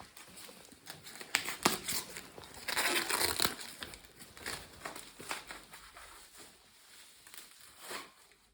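Packaging being handled: crinkling and rustling, with a few sharp clicks and a louder burst of crinkling about three seconds in.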